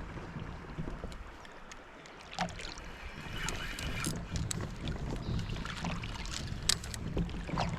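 A kayak on a river with water moving around its hull as a steady low rush, overlaid by scattered light knocks and clicks.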